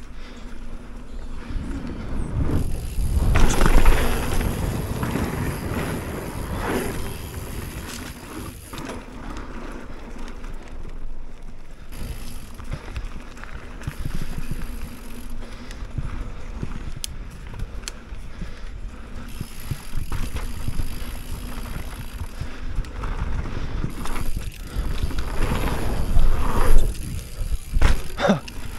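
Mountain bike riding over dirt: the tyres roll and rumble on the track, with louder surges about four seconds in and again near the end.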